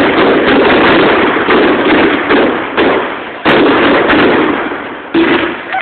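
Fireworks display: loud, near-continuous bangs and crackle, with fresh volleys breaking in about three and a half and five seconds in.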